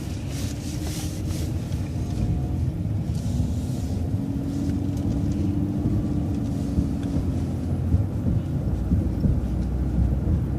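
Transit bus running and pulling away from a turn, heard from inside: a steady low rumble that grows gradually louder, with a faint drivetrain whine rising slightly in the middle.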